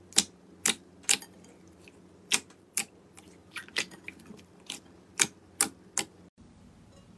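A series of about a dozen sharp, crisp clicks and crunches, unevenly spaced, from a crunchy material being handled; the sound drops out briefly near the end.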